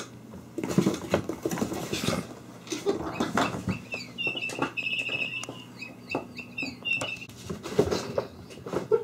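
Kittens scampering and tumbling on a wooden floor: scattered paw patters, skids and light thumps. Near the middle a run of high, quick chirps goes on for about three seconds.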